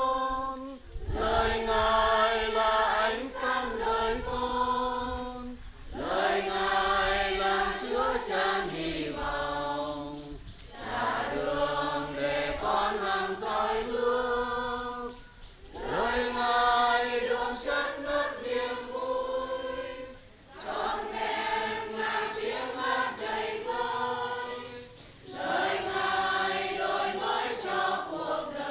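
Choir singing a communion hymn in phrases about five seconds long, with short breaks between them.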